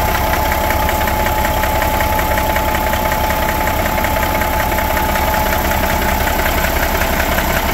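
Caterpillar 3406B inline-six diesel idling steadily, with a steady high whine over the firing pulses and a knock running through it: not a real deep knock, but definitely something not right. The customer took it for valvetrain knocking.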